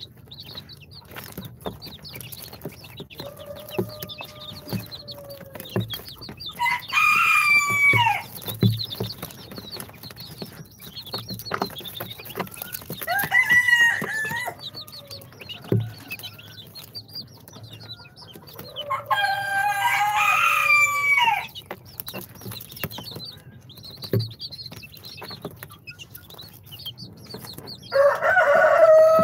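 Chickens calling: four loud, drawn-out calls about six seconds apart, each lasting a second or two, with fainter high peeping and scattered light taps between them.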